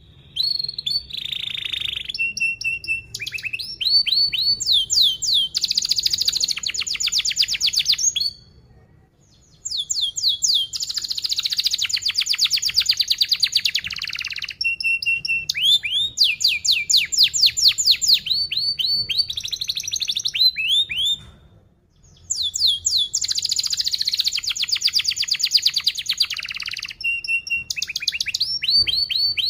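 Domestic canary singing in long phrases of fast, tightly repeated trills and chirps, broken by two short pauses, about eight seconds in and again about twenty-one seconds in.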